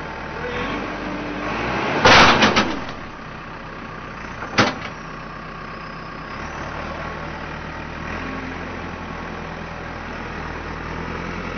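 JCB backhoe loader's diesel engine running steadily. About two seconds in there is a loud, brief clattering impact, and a single sharp knock follows a couple of seconds later.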